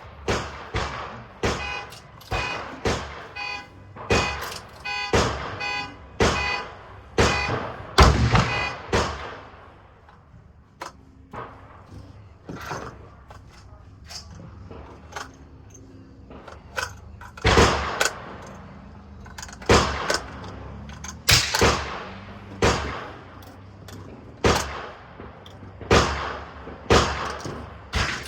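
Rifle shots at a shooting range: sharp cracks with echoing tails, roughly one a second, with a quieter stretch in the middle holding only a few fainter shots.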